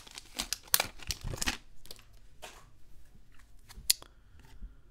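Foil wrapper of a baseball card pack crinkling and tearing as it is pulled off the cards. It is followed by the cards themselves being handled in the hand: a few small ticks and a sharp click near four seconds.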